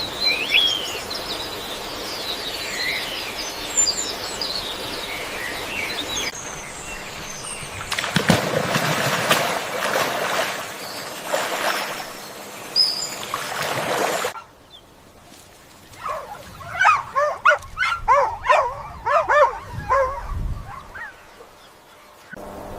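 Several short animal recordings cut together: birds chirping and calling, with a noisier stretch in the middle, then a run of many short, quick calls.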